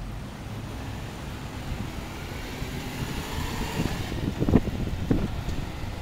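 Cars driving past on a road, their noise swelling as one goes by, with two loud low thumps about four and a half and five seconds in.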